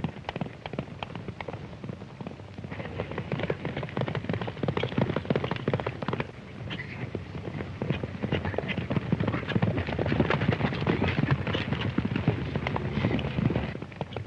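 Galloping horses' hoofbeats, a rapid continuous clatter that thickens and grows louder from about three seconds in and drops off just before the end.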